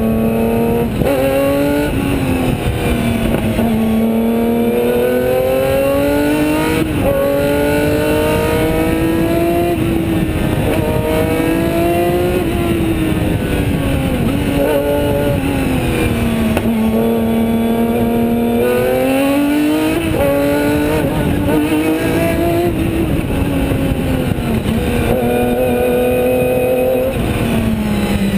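Osella PA 20 S racing prototype's engine at full race pace, heard onboard. It revs hard with its pitch repeatedly climbing, then falling away at gear changes and as the car slows for corners, over heavy wind and road noise.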